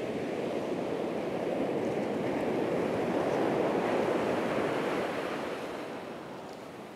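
Ocean surf breaking and washing on a beach: a steady rushing that swells in the middle and fades away near the end.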